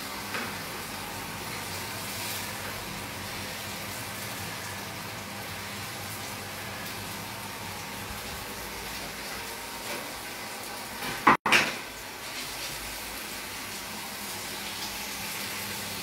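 Floured salmon portions sizzling steadily in a frying pan as they sear. A single short, sharp knock about eleven seconds in is the loudest sound.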